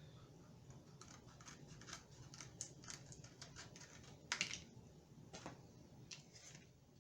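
Faint, irregular small clicks and scratches of cardboard being shaped and cut by hand, with one louder scrape a little past the middle.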